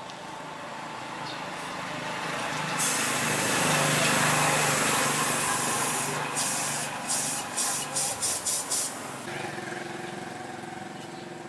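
A small engine running and growing louder, with a loud hiss over it that breaks into a quick series of about eight short hissing pulses and then cuts off, leaving a steady engine hum.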